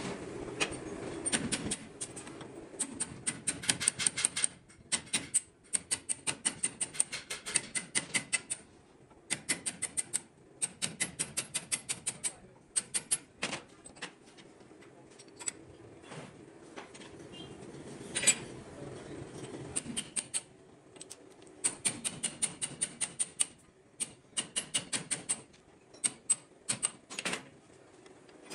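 Rapid light hammer taps on a motorcycle brake shoe clamped in a steel bench vise, metal on metal, about eight taps a second in runs of a second or two with short pauses between.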